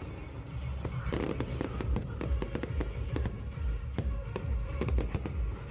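Fireworks bursting in quick succession, a run of sharp bangs and crackles over a low rumble, with music playing underneath.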